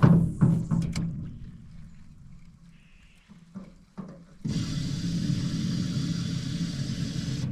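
Electric trolling motor running with a steady hum and water hiss. It stops just after a loud hollow knock on the boat at the start, then runs again from a little past halfway.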